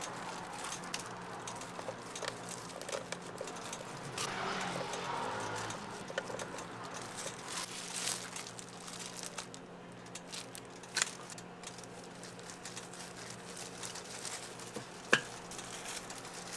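Crepe-stall food preparation: soft rustling and crinkling of handling, with a couple of sharp clicks, the second near the end the loudest, over a low steady hum.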